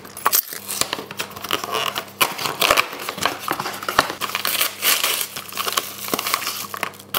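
A cardboard box and paper packaging being handled and opened by hand: irregular crinkling and crackling, with scattered sharp clicks and knocks as the packaging is handled.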